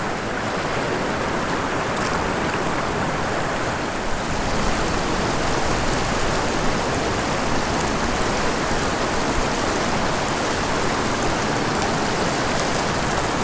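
Steady rush of a shallow river running fast over boulders and riffles.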